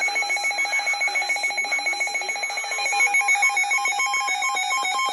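Electronic weather-alert alarm beeping rapidly, about eight beeps a second, which about three seconds in changes to an alternating two-pitch pattern: the alert signalling a severe thunderstorm warning.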